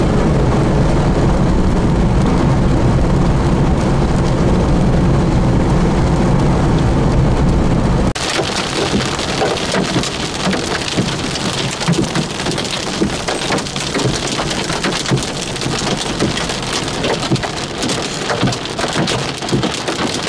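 Steady low road and engine rumble of a car driving. About eight seconds in it changes abruptly to heavy rain hitting, a dense crackle of drops.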